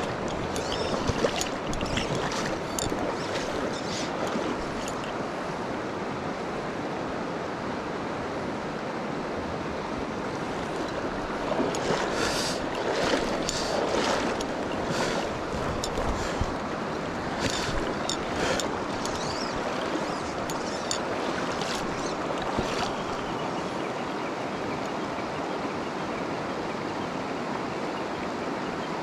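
Mountain stream rushing steadily, with scattered sharp clicks and knocks through the middle stretch.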